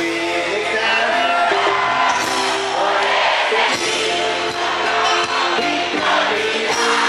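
Live cumbia villera band playing, a keytar synthesizer's chords and melody over the rhythm, with singing and crowd shouts mixed in.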